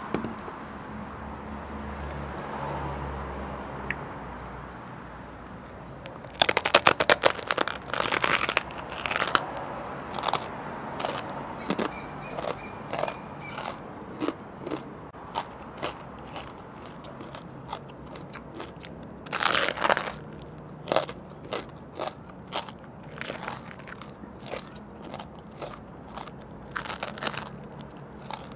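Crisp crackling skin of a deep-fried pork knuckle (crispy pata) crunching as it is bitten and chewed. A dense run of loud crunches comes about six seconds in, then scattered crunches, with another loud burst around twenty seconds.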